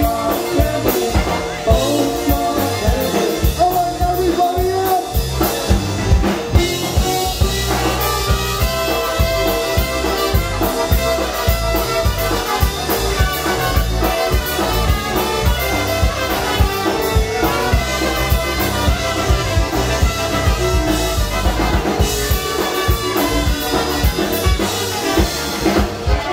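Live polka band playing through a PA: trumpets carrying the melody over accordion and concertina, with electric guitar and a drum kit keeping a steady beat.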